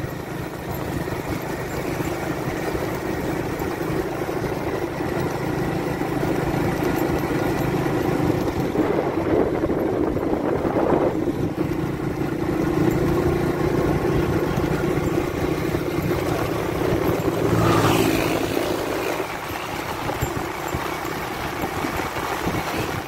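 Engine and road noise of a moving vehicle, heard from on board: a steady low engine hum that swells and eases slightly as it drives, with a short louder rush of noise about eighteen seconds in.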